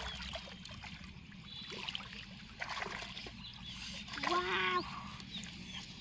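Water splashing and sloshing as someone wades through a weedy pond and handles a caught fish, with one short call about four seconds in.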